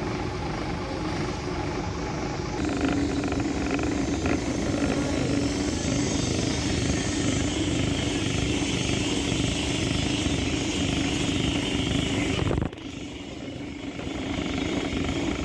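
Steam locomotive moving slowly past close by, a steady rumble with steam hiss that drops off sharply about thirteen seconds in.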